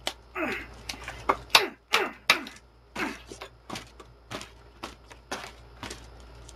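Paper being torn apart by hand in a series of sharp, quick rips, about two a second.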